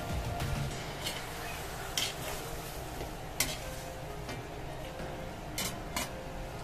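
Metal spatula stirring and tossing chicken feet in a metal wok over a low sizzle, with a few sharp clinks of the spatula against the pan.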